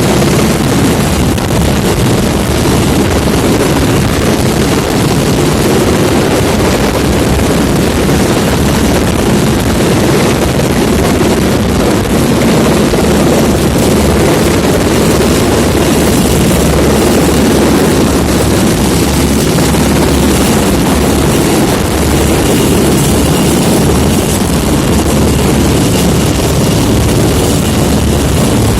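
Rescue helicopter running close by, its rotor and turbine making a loud, steady thrum.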